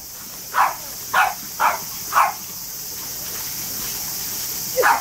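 A small dog swimming in a paddling pool: four short splashy puffs about half a second apart, then another near the end, over a steady hiss of a jet of water pouring into the pool.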